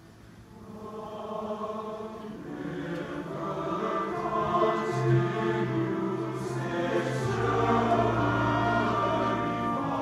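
A large men's chorus singing, swelling from a soft start to full volume over the first few seconds.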